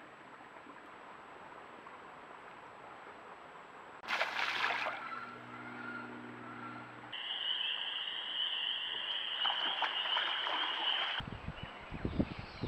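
Outdoor pond sounds from wildlife-camera clips: a faint steady hiss, a brief loud rush of noise about four seconds in, then a steady high-pitched chorus of calling, and a few low thumps near the end.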